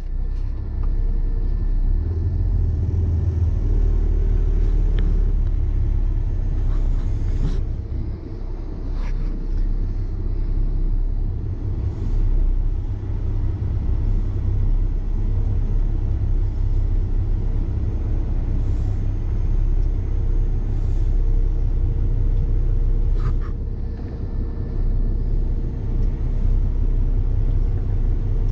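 Heavy diesel truck engine running steadily under load as the truck creeps across soft, rutted ground, a deep rumble with a few faint clicks and knocks.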